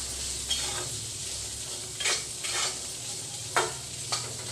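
A metal spatula stirs and scrapes boiled chickpeas around a metal kadhai while they sauté in hot spiced oil, the oil sizzling steadily underneath. The spatula scrapes or knocks against the pan about five times.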